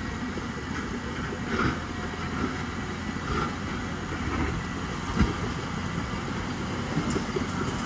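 Cat D6T XW crawler dozer at work, its diesel engine running steadily while it pushes dirt with the blade, with scattered clanks from the undercarriage and one sharp knock about five seconds in.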